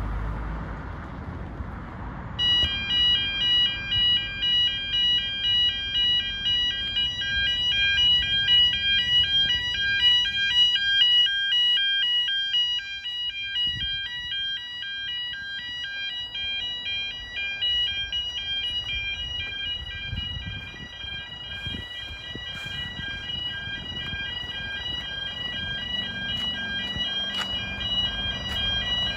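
Level crossing audible warning alarm starting up about two and a half seconds in and sounding on in rapid, even electronic pulses: the warning that a train is approaching and road traffic must stop.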